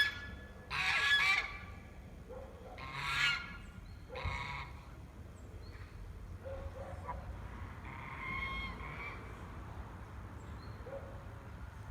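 Several short animal calls, each under a second and a few seconds apart, with a fainter, longer call about eight seconds in. They come from the farm animals being called as "ragazze".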